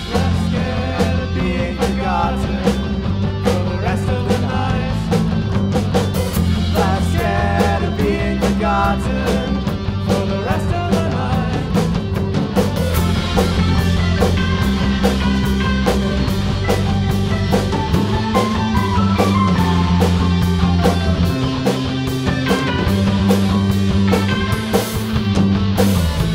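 Rock band playing the song: electric guitar, bass guitar and drum kit, with a steady beat and moving bass line.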